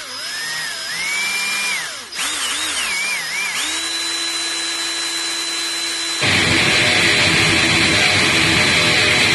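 Power drill whining, its pitch rising and falling as the motor speeds up and slows, then holding a steady high whine. About six seconds in, a louder rasping noise joins the whine.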